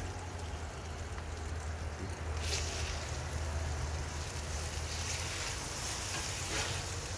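A metal spatula scrapes leftover cheese and meat bits across a hot Blackstone steel flat-top griddle, with sizzling; the scraping starts about two and a half seconds in and comes and goes. A steady low rumble runs underneath.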